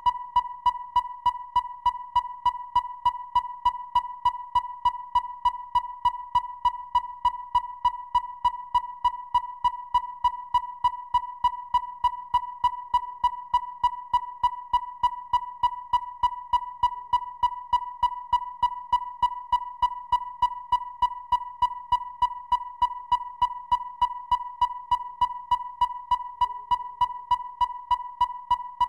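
Synthesized robot sound effect: one steady, unchanging electronic tone with a sharp click pulsing through it about three times a second.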